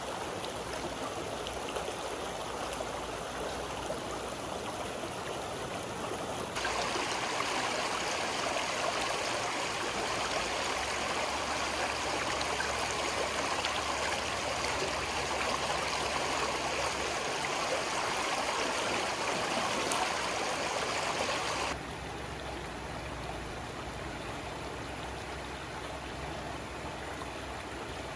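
Shallow stream running over rocks: a steady rush of water. It steps up louder about six seconds in and drops back down about two-thirds of the way through.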